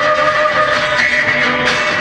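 Music with long held notes, played over a hall's speakers as the soundtrack of a projected video.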